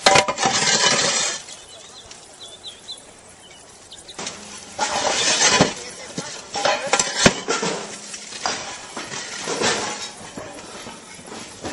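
Clay roof tiles scraping and clinking as they are lifted and moved, with a couple of sharp knocks.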